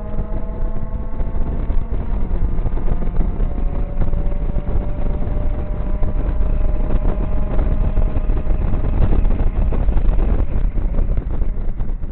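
Mazda MX-5 Mk1's 1.8-litre four-cylinder engine, with a full decatted exhaust, pulling hard at high revs, its pitch climbing steadily with one short dip about two seconds in. About ten seconds in the engine note fades as the throttle comes off, leaving wind noise in the open cockpit.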